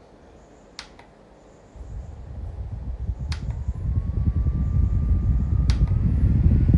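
Rechargeable circulator desk fan switched on and stepped up through its speeds with button clicks. Its motor whine rises in pitch after a later click, and the blown air rushes louder and louder against the microphone.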